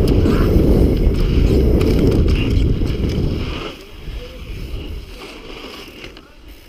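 Wind buffeting the action camera's microphone and mountain-bike tyres rolling over a dirt trail, a loud rumble that falls away suddenly about three and a half seconds in as the bike slows.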